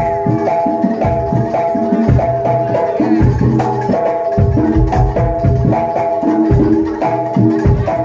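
Live jaranan dor accompaniment: a Javanese gamelan-style ensemble, with pitched gong-chime tones repeating a short figure over steady low drum strokes.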